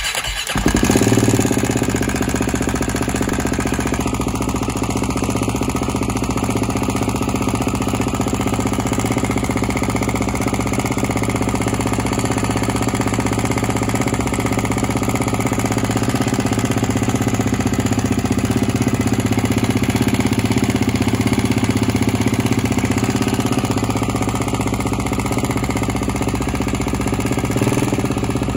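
BMW G450X's single-cylinder engine idling steadily while cold, running noisy from cold.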